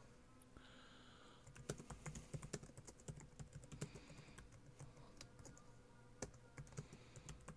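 Faint typing on a computer keyboard: irregular runs of key clicks, beginning about a second and a half in.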